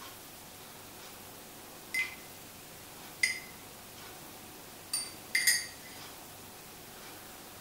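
A metal teaspoon clinking against a ceramic mug: a few short ringing tinks about a second apart, the last two close together, over quiet room tone.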